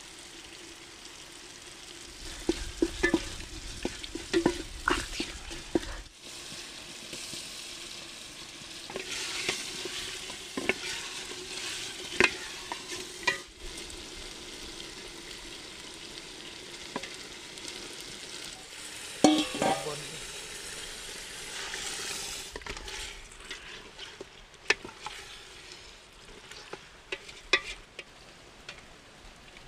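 Food sizzling as it fries in an aluminium pot, with a wooden spatula scraping and knocking against the pot and a steel bowl as raw meat is stirred and scooped in. The steady sizzle is broken by sharp clicks and knocks, in clusters near the start, around the middle and near the end.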